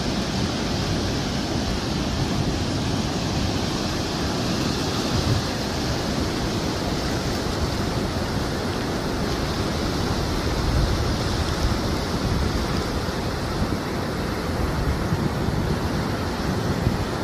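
Ocean surf breaking and washing on a sandy beach, a continuous roar of waves with wind buffeting the microphone.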